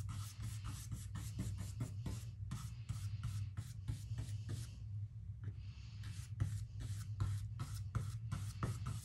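Flat paintbrush scrubbing acrylic paint across a canvas in quick back-and-forth X strokes, a dry scratchy swish about three or four times a second, with a short pause about five seconds in.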